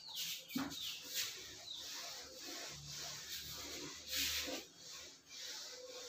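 A whiteboard duster rubbed across a whiteboard in repeated, irregular strokes, wiping off marker writing.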